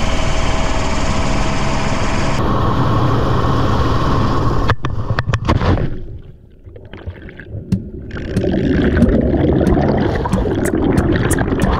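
A hovering helicopter's hum with rushing wind, then a splash into the sea about five seconds in. The sound goes muffled and quiet underwater, then churning bubbles with many sharp pops and clicks.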